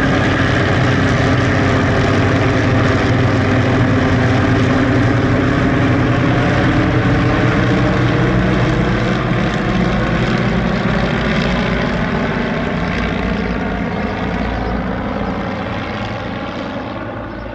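Piston engine and propeller of a WWI-era aeroplane running with a continuous drone; from about halfway on its pitch slowly falls and it grows gradually quieter.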